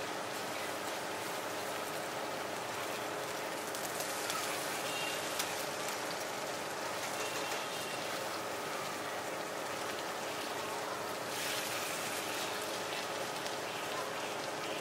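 Shredded-potato cakes sizzling in oil on a flat metal griddle tray, a steady hiss, with a few light clicks of a metal spatula and knife against the pan.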